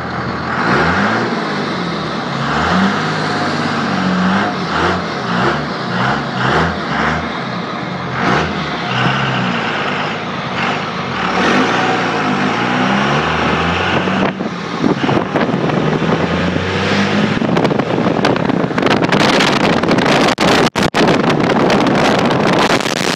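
Cummins turbo-diesel straight-six of a 2001 second-gen Dodge Ram, revved in a series of quick blips. For the last several seconds it gives way to a louder, steady rush of engine and air noise.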